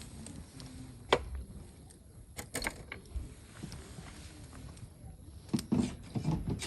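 A series of sharp knocks and clatters: one loud knock about a second in, a few more around the middle, and a busier run of clattering near the end.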